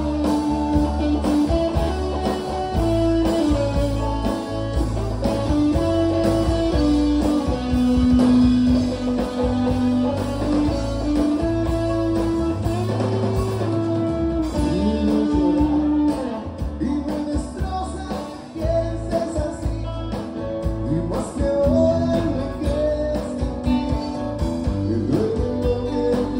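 Live band playing loud rock: a singer over acoustic and electric guitar, bass guitar and drums. The music is too loud for the recording microphone to capture cleanly.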